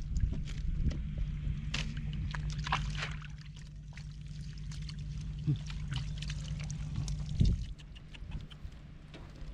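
Water splashing and sloshing in irregular strokes, with a steady low hum underneath.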